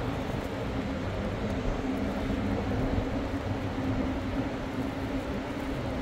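City street ambience: a steady rumble of distant traffic under a faint steady hum.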